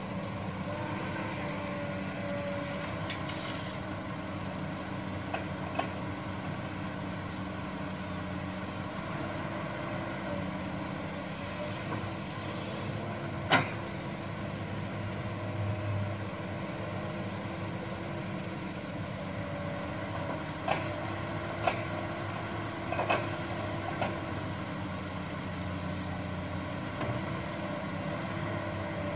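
Diesel engine of a Komatsu hydraulic excavator running steadily as it digs and loads earth into a dump truck. Sharp knocks come a few times, the loudest about halfway through and a cluster near the end, typical of the bucket and its linkage striking.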